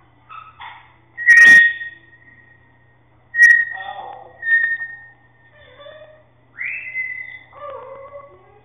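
Pet birds whistling and chattering: a string of high whistled notes broken by lower chattering calls, the loudest a sharp call a little over a second in.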